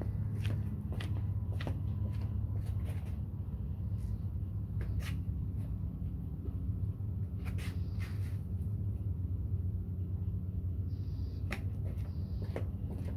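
Scattered sharp clicks and slaps of flip-flop footsteps on concrete, over a steady low hum.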